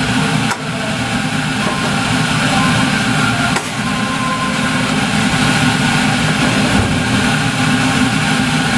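Steady low drone of a standing sleeper express, heard from the conductor's vestibule, with a short knock about half a second in and another about three and a half seconds in.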